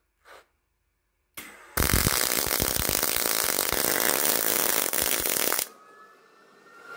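Miller 211 MIG welder arc running a bead on thin auto body sheet metal, a loud steady crackling hiss that starts about two seconds in and cuts off suddenly near the end. The voltage is set too high (8): the weld pool gets out of hand, throwing excessive spatter and blowing through the sheet.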